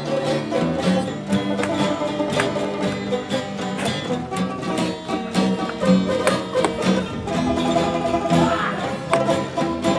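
Instrumental background music, a brisk tune of quick picked notes.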